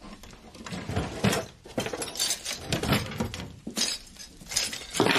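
Metal cutlery clattering and clinking as a kitchen drawer is rummaged through, in a run of irregular rattles and knocks.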